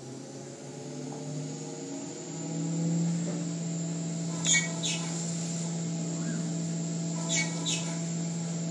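Hurco VMX20 CNC vertical mill cutting aluminium under coolant: a steady pitched hum from the spindle and cut that grows louder about two and a half seconds in, with a thin high whine above it. Brief sharp squeals break out once about halfway through and twice close together near the end.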